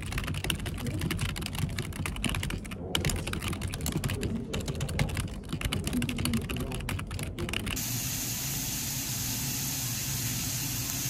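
Fast typing on a computer keyboard, a dense run of key clicks with brief pauses. About three-quarters of the way through it gives way to pork belly sizzling on a cauldron-lid grill, a steady hiss.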